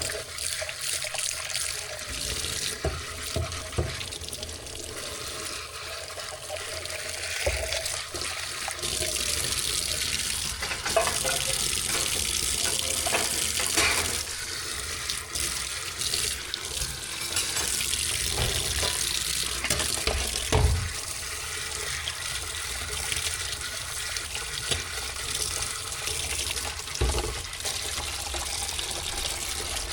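Water running from a tap into a sink, with a few dull knocks along the way.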